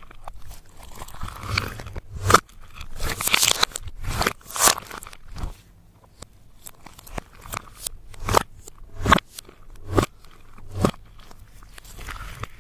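Slime and crushed makeup being worked by hand: irregular crunching and crackling with sharp snaps every second or so, and a rougher stretch of crackling near the start.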